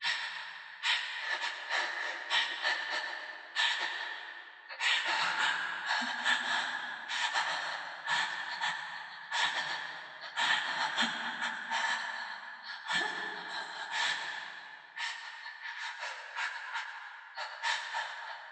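A woman breathing in and out in a quick, uneven run of breaths, each trailing off in an added echo like that of a stone vault.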